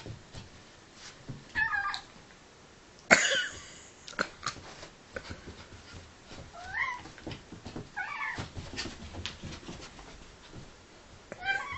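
A cat meowing and yowling in short calls, about five of them, some bending up in pitch, while it faces off with a playing dog. About three seconds in comes one sudden, much louder cry. Light knocks and scuffles sound between the calls.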